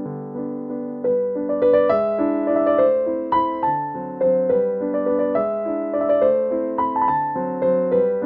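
Background piano music: a gentle melody of struck notes over held chords, the notes coming more often and a little louder from about a second in.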